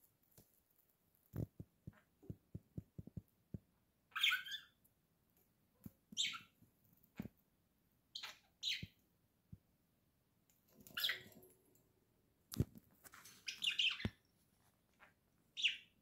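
Pet budgerigars giving short, high chirps every second or two. In the first few seconds there is a quick run of about eight sharp clicks, and two louder clicks come near the end.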